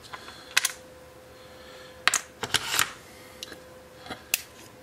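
Light clicks and clacks of small 3D-printed PLA pieces being handled and set down on a tabletop: a handful of separate taps over the few seconds, with a faint steady hum underneath.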